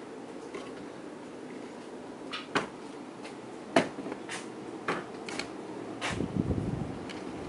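Kenroy ceiling fan running on high with a steady hum of motor and moving air, broken by half a dozen sharp clicks and knocks in the middle. About six seconds in, a low rumble of air buffeting the microphone joins in.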